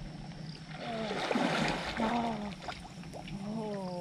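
Lake water splashing as a swimmer moves through it, swelling about a second in and dying away a second later, with a few wordless vocal sounds around it.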